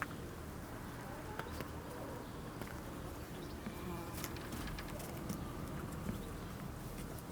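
Quiet farmyard ambience: faint soft calls of birds in the yard over a steady low background, with scattered small clicks.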